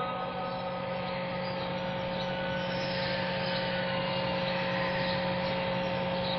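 Steady hiss of a vast crowded open-air mosque heard over a TV broadcast, with a steady low hum and a few faint steady tones underneath, during a silent pause in congregational prayer.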